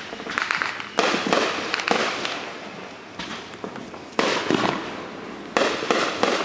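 Neighborhood consumer aerial fireworks going off: about five sudden bangs, the loudest about a second in, each followed by a run of fast crackling that dies away.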